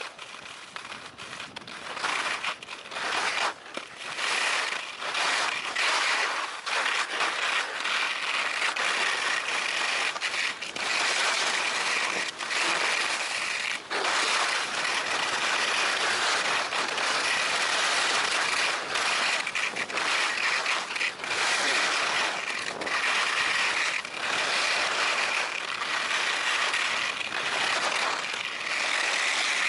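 Alpine skis scraping and hissing over packed snow on a downhill run, the scrape swelling and dropping with short breaks every second or two.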